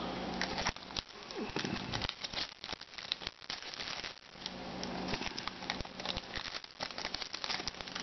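Foil wrapper of a football trading-card pack being torn open and crinkled by hand, an irregular run of crackles and rustles as the cards are pulled out.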